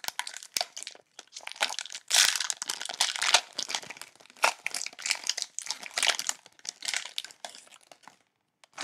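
Cellophane wrapper of a baseball card cello pack crinkling and tearing as it is ripped open, a dense run of irregular crackles that stops about eight seconds in.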